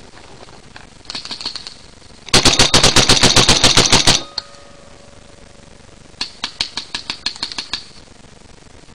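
Paintball markers firing rapid strings of shots, about seven a second: a few faint shots, then a loud string of about fifteen lasting about two seconds, then after a pause a quieter string of about a dozen.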